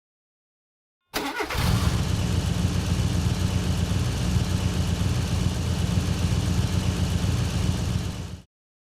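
Car engine starting: a short burst of cranking about a second in, then the engine catches and runs steadily for about seven seconds before cutting off abruptly.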